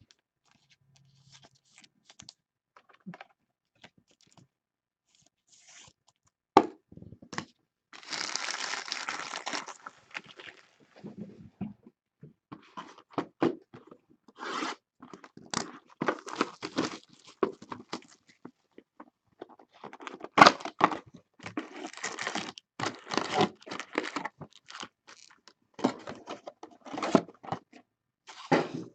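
Plastic trading-card pack wrappers crinkling and being torn open by hand, with clicks of cards and packaging being handled. The first few seconds hold only faint taps; a sharp click comes about six seconds in, then a steady tearing sound for about two seconds, then repeated bursts of crinkling to the end.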